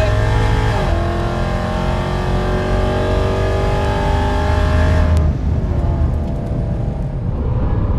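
ProCharger-supercharged 5.7 Hemi V8, breathing through long-tube headers and a Borla ATAK exhaust, at full throttle down the drag strip. It upshifts about a second in with a drop in pitch, then climbs steadily in revs. About five seconds in the throttle is lifted at the end of the quarter-mile pass, and the engine falls back to a lower rumble.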